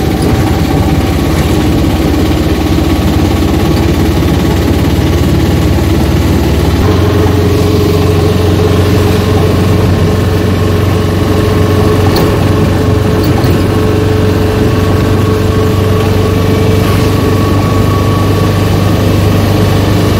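Motorcycle engine running steadily while riding along a road; its note shifts about seven seconds in.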